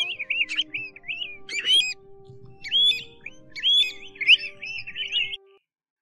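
Pacific golden plover calling: a run of clear, quick whistled notes that slur upward, some doubled and sharper. Background music with steady held tones plays under them, and both cut off suddenly near the end.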